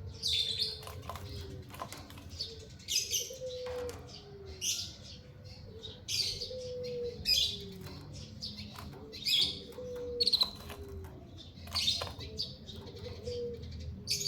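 Small cage birds, a canary and a white-headed munia, giving short high chirps about once a second. A lower, falling note repeats every three seconds or so beneath them.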